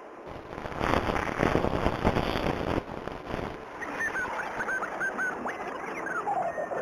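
Sci-fi soundscape effects: a loud rushing burst of noise lasting about three seconds, then a quick run of short chirping calls with some falling notes.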